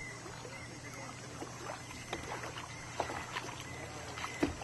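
Lakeside boat ambience: distant voices of people on the boats and shore over a low steady hum, with scattered small knocks and one sharper knock near the end.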